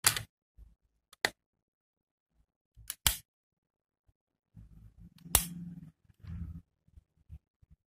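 Sharp clicks of a 1:32 die-cast metal Nissan GT-R scale model's bonnet and door being pressed shut and worked by hand: one click at the start, one about a second in, one about three seconds in, and the loudest a little past five seconds, with low handling rumble around it.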